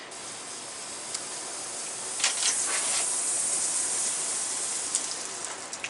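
Water hissing and spraying out of the vacuum breaker on an outdoor hose spigot as the tap is turned on, getting louder about two seconds in.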